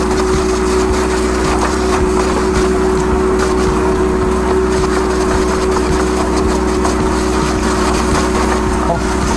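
High-pressure drain jetter's engine-driven pump running steadily with a constant hum, with water spraying from the pipe fitting as the jetting hose works to clear a blocked drain.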